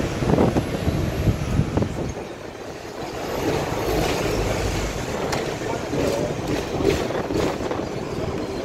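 Ride noise on the upper deck of a moving Hong Kong double-decker tram: a steady low rumble of wheels on the rails and the running gear, which eases off briefly about two seconds in.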